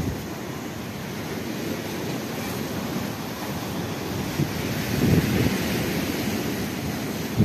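Wind rushing and buffeting the microphone over choppy sea waves washing, with a stronger gust about five seconds in.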